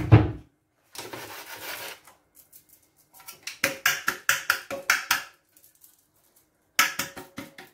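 A buttered cake pan being shaken and tapped to spread a dusting of flour over it. A soft rustle of about a second is followed by a run of quick taps, and more taps come near the end.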